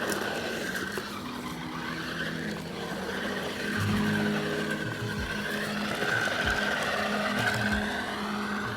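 Toy RC truck's small electric drive motor and plastic gears whining, speeding up and slowing down as it is driven through dry leaves, with leaves rustling under the tires.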